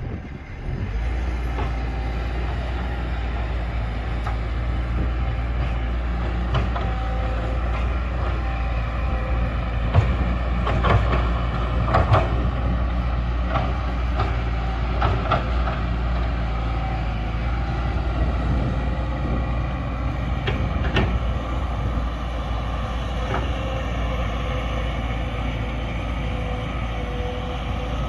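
Large excavator's diesel engine running steadily under load, with a few sharp knocks from the digging work, most of them in the middle of the stretch.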